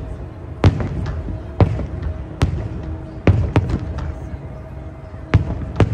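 Aerial firework shells bursting: about seven sharp booms at irregular intervals, a few close together in pairs.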